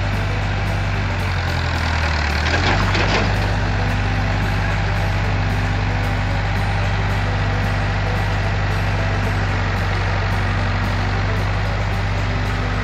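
Farm tractor engine idling steadily, with a brief louder rush about two and a half seconds in.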